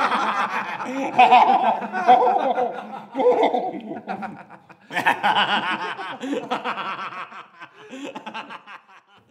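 Several men laughing heartily together. The laughter dies down for a moment a little before five seconds in, starts up again, and then tapers off near the end.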